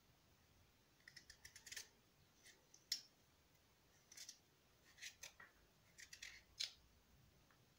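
Kitchen knife slicing through a firm papaya: an irregular series of short, crisp clicks and crunches as the blade cuts the flesh.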